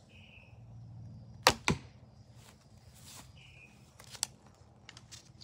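A traditional longbow being shot: a sharp thump of the string on release about a second and a half in, then a second crack a fifth of a second later as the arrow strikes the target. A fainter click follows a few seconds later.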